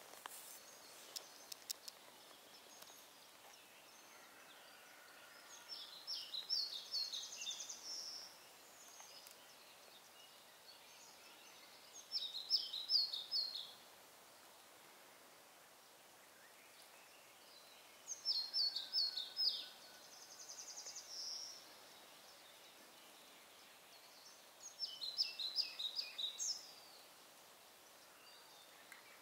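A songbird singing: four short phrases of quick, high notes, each about two seconds long and about six seconds apart, over a faint steady hiss. A few faint clicks come near the start.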